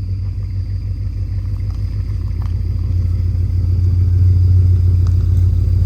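Ford F250 pickup's engine idling, a steady low rumble that gets somewhat louder about two-thirds of the way through.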